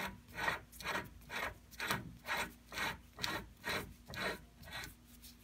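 Spindle-remover socket being spun by hand onto the threaded front spindle of a Dana 44 TTB axle: a short metal rasp with each turn, a little over twice a second, the last few strokes weaker.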